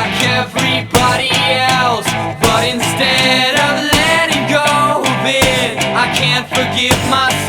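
Rock music in an instrumental break: electric guitar playing sliding, bent notes over a steady, hard-hitting drum beat.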